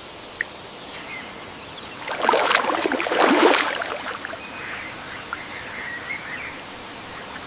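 Forest ambience with a steady rush like flowing water, broken about two seconds in by a loud burst of rapid rustling strokes lasting about two seconds, then a few faint high bird chirps.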